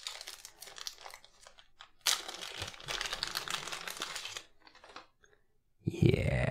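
Clear plastic bag crinkling and rustling in the hands as a folding knife is worked out of it, then a short pause. Near the end comes a brief, louder wordless vocal sound from the person handling it.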